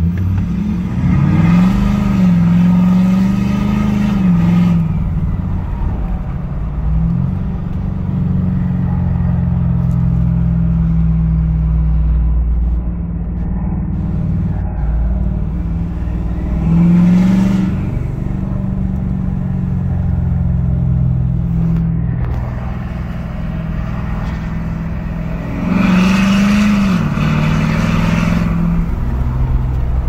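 Ford 6.7 Power Stroke V8 turbo-diesel engine idling in Park and revved briefly three times, each time rising and dropping back to idle. Each rev carries a high screech, which the owner hears where the tuned engine should bark.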